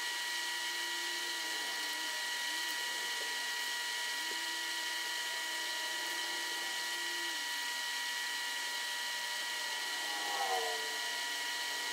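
Steady high-pitched electrical whine over hiss, with faint short squeaks of a Sharpie marker being drawn across tracing paper.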